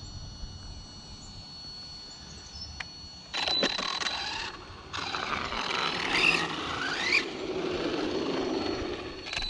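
Arrma Senton 6S RC truck's brushless motor whining on a full-speed run, starting about a third of the way in, breaking off briefly, then rising and falling in pitch along with tyre noise.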